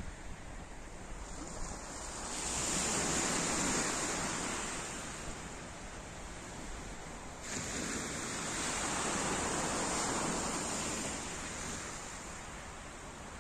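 Small sea waves breaking and washing over a pebble beach, swelling twice.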